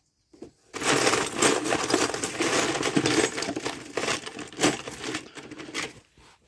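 Small metal clock parts clinking and rattling as a hand rummages through a parts box: a dense jingling clatter that starts about a second in and tails off near the end.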